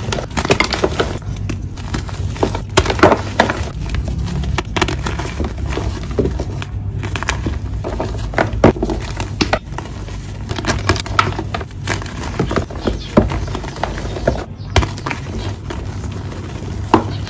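Reformed gym chalk bars squeezed and crumbled in bare hands: a continuous run of dry, irregular crunching and crackling as the blocks break into powder.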